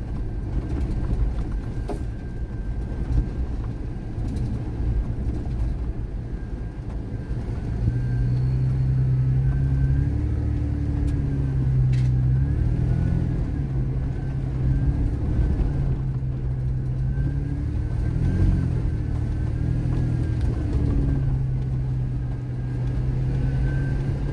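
Off-road vehicle driving on a sandy, washboarded trail: a steady low rumble from the engine and the body bouncing, with a few brief knocks. From about eight seconds in, the engine note grows louder and holds steady, dipping and rising a few times as the throttle changes.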